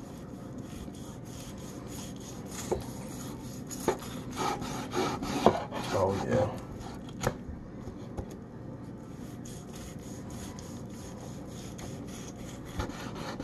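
A large kitchen knife sawing back and forth through a smoked, rub-crusted pork sirloin roast, with repeated rasping strokes that are loudest a few seconds in.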